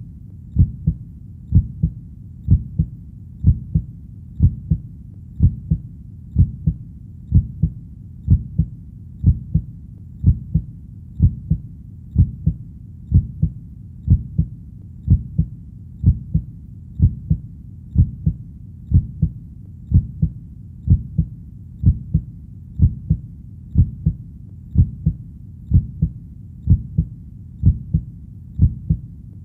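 Human heartbeat: a steady, deep double thump (lub-dub) repeating about once a second, over a faint low rumble.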